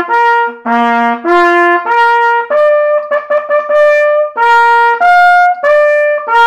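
A valveless natural trumpet plays a fanfare-like tune of separate tongued notes that leap between the steps of its harmonic series, with a quick flurry of short notes in the middle and a longer note held near the end. Without valves, the pitch changes come from lip tension alone.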